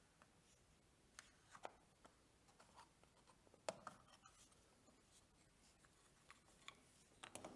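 Faint, scattered clicks and light knocks of small hardwood box parts being handled and fitted together, a few at a time with pauses between.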